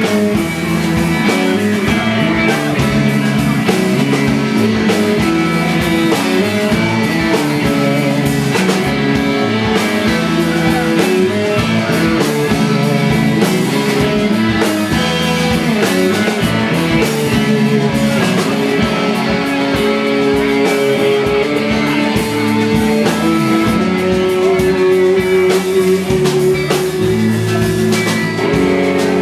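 A band playing an instrumental passage of a rock song, with guitar over a drum kit, at a steady, full level.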